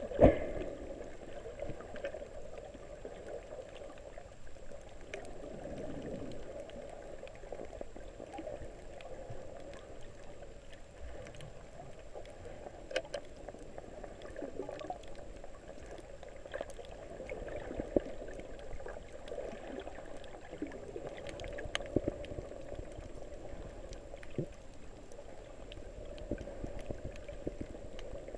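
Muffled underwater water noise as the camera moves through the sea, a steady low wash with scattered small clicks and a couple of sharper knocks, the loudest just after the start. A faint steady high whine runs under it.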